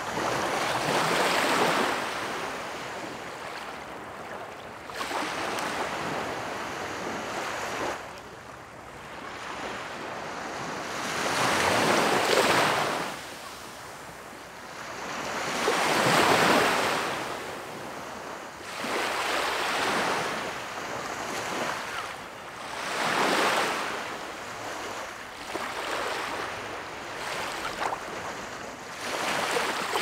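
Small waves breaking and washing up a sandy beach: a hiss of surf that swells and fades about every three to four seconds, with the loudest breaks near the middle.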